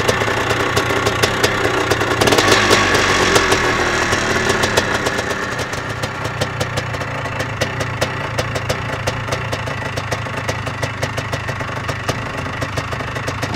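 Kramer LR 410 dirt bike engine idling with an uneven, knocking beat. It swells briefly about two seconds in, then slowly settles back.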